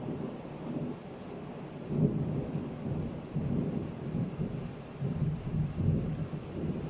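Thunderstorm: rolling thunder rumbles low, swelling and fading several times, over a steady hiss of rain.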